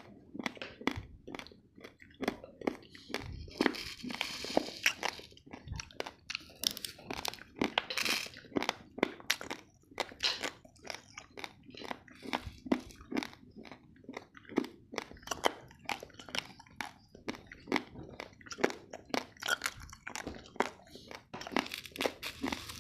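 Raw, uncooked basmati rice grains being crunched between the teeth in a steady run of sharp crunches, about two to three a second, close to the microphone.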